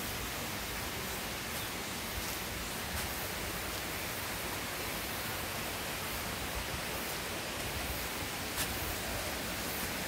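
Mountain stream water rushing over rocks as a steady, even hiss, with a faint tick or two near the end.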